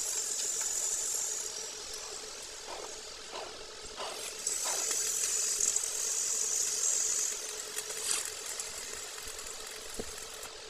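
Arc welding on a steel excavator track-roller part: the arc crackles and sizzles in spells, loudest and longest in the middle, with a few short taps a few seconds in and a steady hum underneath.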